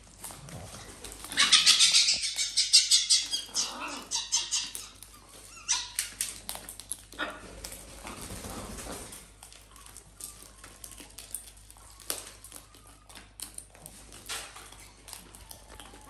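A burst of loud, harsh, rapid animal calls starting about a second in and lasting a couple of seconds, then a few weaker calls. After that come scattered small clicks and crunches of parrots' beaks cracking seeds in a metal tray.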